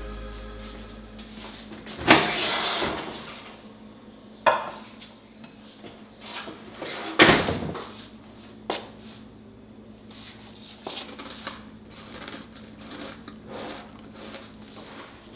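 A few sharp knocks and clatters of household objects being handled, the loudest about two seconds in and again about seven seconds in, with quieter ticks between.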